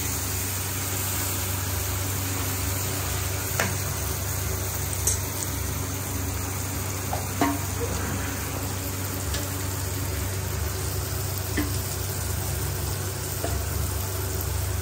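Metal spoon clinking now and then against a steel bowl and an aluminium pot as chicken pieces and gravy are spooned onto rice, over a steady hiss with a low hum.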